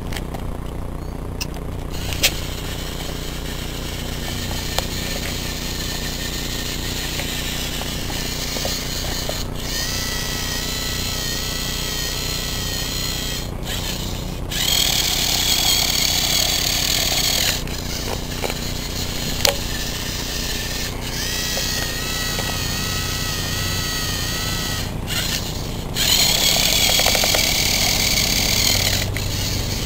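LEGO Mindstorms NXT servo motors and plastic gear trains whirring as a small wheeled robot drives over concrete. In places the whine wavers in pitch, the motor noise grows louder for a few seconds about halfway and again near the end, and there are a few sharp clicks.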